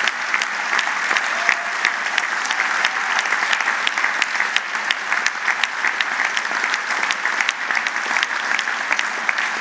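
A large hall audience applauding steadily, with many sharp single claps standing out from the even clatter.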